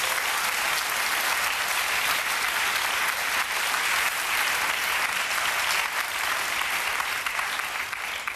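Studio audience applauding steadily, dying away at the end.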